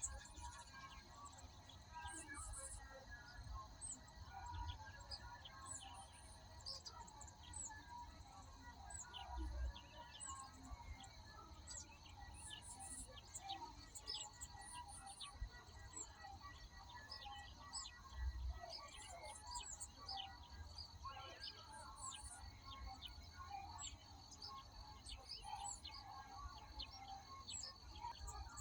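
Many small birds chirping and calling, with short overlapping notes throughout, over a steady high insect drone. A faint low rumble runs underneath, heavier twice: about a third and about two thirds of the way through.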